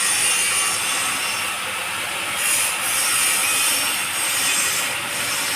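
Ginger-peeling washing machine running, ginger rubbing and tumbling against its abrasive drum as a steady rasping hiss that swells and eases slightly.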